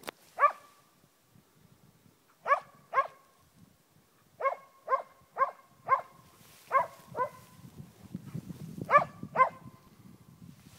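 Moose-hunting dog baying: about eleven sharp barks, singly and in quick pairs and runs, the bark a hunting dog gives when it has brought a moose to a stand. A low rumble sits under the later barks.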